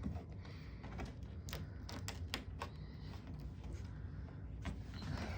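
A scattered series of light clicks and taps over a low steady hum.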